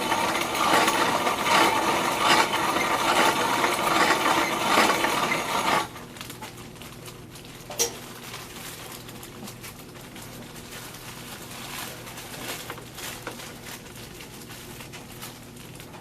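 Corona-style grain mill crushing malted barley: a dense crunching, rattling grind that cuts off sharply about six seconds in, leaving quieter small clicks and rattles with one sharp knock near eight seconds.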